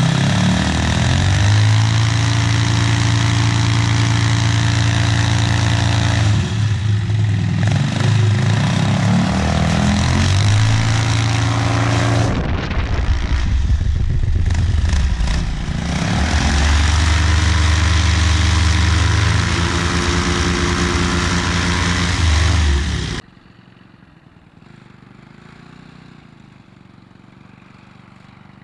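Homemade paramotor's single-cylinder four-stroke engine, fitted with a chambered aluminum muffler, running at high throttle; the throttle is eased back and opened again a few times, so the pitch drops and climbs. The sound cuts off suddenly about 23 seconds in, leaving only a faint low background.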